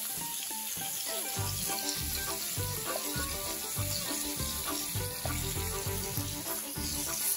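Merguez sausages and meat patties frying on a hot plancha griddle, sizzling steadily in their fat.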